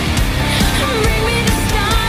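Background music: a song with drums and a wavering melody line.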